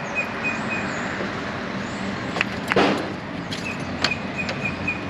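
Steady road-traffic noise with a rapid, high-pitched beeping that comes in two runs, near the start and again in the last second and a half, and a few sharp clicks and a short rushing burst about halfway through.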